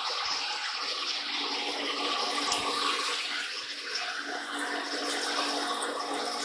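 Warner & Swasey turret lathe spade-drilling a spinning bar under flood coolant: a steady rush of coolant spraying and splashing over the chuck and work, with the machine's faint steady hum beneath.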